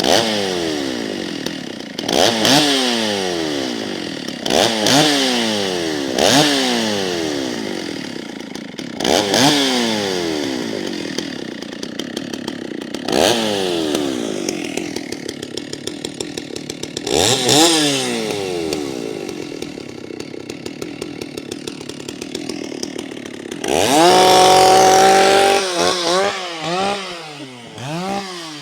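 Stihl 064 two-stroke chainsaw revved in repeated throttle blips: each time the engine shoots up in pitch and winds back down, about every two to four seconds. Near the end it is held at high revs for about two seconds, then drops back with a few quick short blips.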